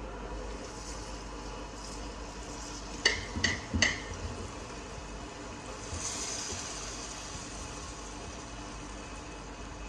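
Three quick, ringing clinks of a utensil striking a bowl, about three seconds in, over a steady background hiss.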